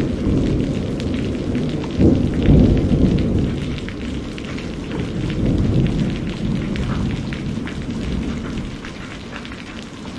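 Steady rain with rolling thunder; the loudest rumble comes about two seconds in, and the storm fades toward the end.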